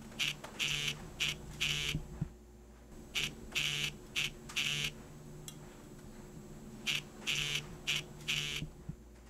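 Smartphone ringing with an incoming call: three rounds of four short electronic tones each, the rounds a little under two seconds long and about three seconds apart.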